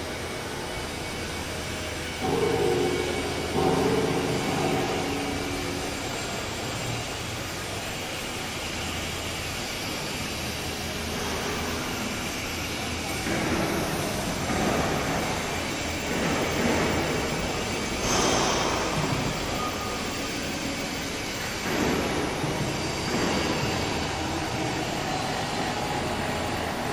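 Workshop machinery running: a steady mechanical hum, with louder whirring spells about two seconds in and several more in the second half.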